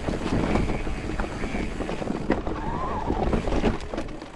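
Mountain bike rolling over a rough dirt trail: tyres on the ground with many small knocks and rattles from the bike, and wind on the microphone. The noise eases off near the end.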